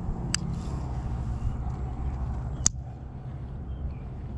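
Casting a spinnerbait on a baitcasting rod and reel: a short sharp click just after the start and a louder click about two and a half seconds in, over a steady low rumble.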